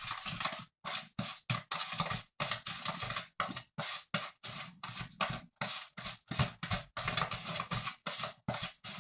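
A utensil scraping and stirring around a bowl, mixing a gritty stevia and molasses mixture, in quick rhythmic strokes of about two to three a second.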